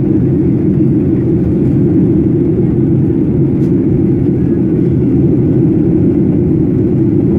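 Steady cabin noise of a Boeing 737 airliner in flight on descent: the engines and rushing air heard from a window seat as a loud, even, low-pitched drone.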